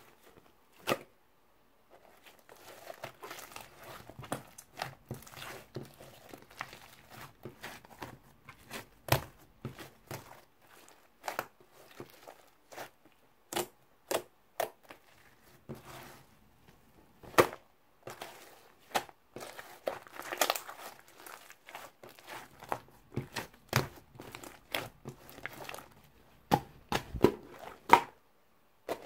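Soft, cake-textured berry slime being stretched, poked and squeezed by hand: irregular sticky crackling and tearing, with frequent short sharp clicks. There is a near-silent pause at the start and a brief lull past the middle.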